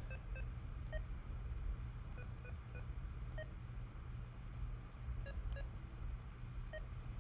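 Keypad beeps from a Kenwood TH-D74 handheld radio as its keys are pressed to type a text message: short, faint beeps at irregular intervals, sometimes two or three close together.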